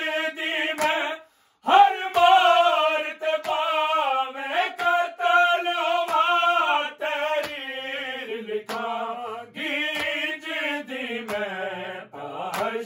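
Several men singing a Punjabi nauha together without instruments, holding long wavering notes, with a short break for breath about a second and a half in. Sharp hand strikes keep time with the chant.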